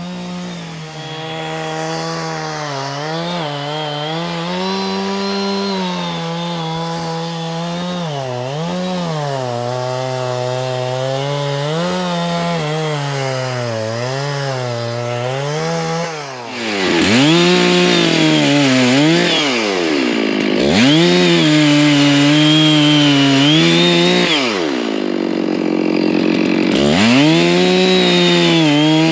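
Stihl MS660 chainsaw, a big two-stroke saw, running hard through wood, its engine pitch dipping and picking up again over and over as it loads in the cut. It gets louder about halfway through, and a few times after that the revs sag deeply before climbing back.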